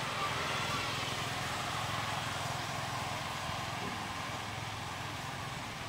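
Steady outdoor background hiss with no distinct events, slightly louder in the first half.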